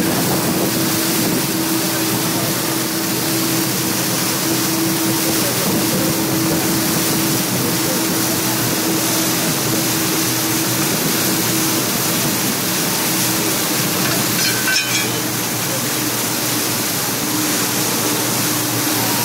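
Floodwater rushing and churning as a truck ploughs through it, over the steady hum of the truck's engine. A brief knock about three-quarters of the way through.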